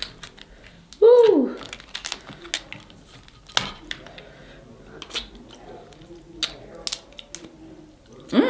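Snow crab shells cracking and snapping in scattered sharp clicks, with chewing and mouth sounds between. About a second in, a short hummed vocal sound falls in pitch and is the loudest sound.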